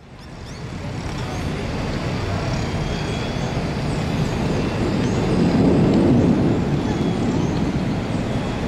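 Street traffic noise: a steady rush and hum of road vehicles that fades in at the start and grows louder about six seconds in.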